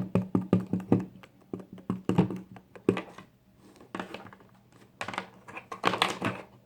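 Fluffy slime being squeezed and kneaded by hand: a run of quick sticky clicks and pops, thinning out and then crackling again near the end, over a low steady hum.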